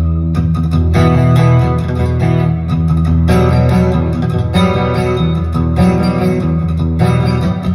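Taylor 914CE steel-string acoustic guitar playing a riff of ringing chords, with fresh attacks every second or so and a strong bass.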